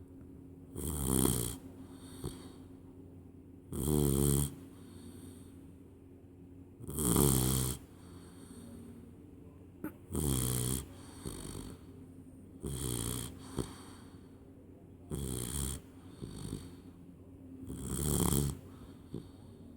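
A 12-week-old Labrador retriever puppy snoring in its sleep. A pitched, rasping snore comes about every three seconds, with quieter breaths in between.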